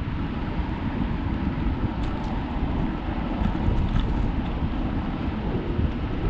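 Wind buffeting the microphone of a camera riding on a moving bicycle: a steady low rumble, with the tyres running on the paved trail beneath it.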